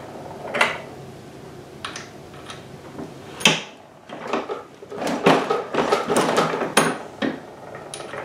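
Metal clicks and rattles of a single-stage reloading press and brass cartridge cases being handled: scattered light clicks, a sharp click about three and a half seconds in, then a busier run of knocks and rattles.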